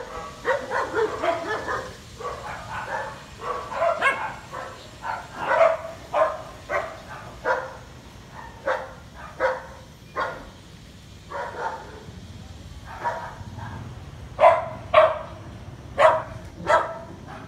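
A dog barking repeatedly, short separate barks about one or two a second, loudest near the end.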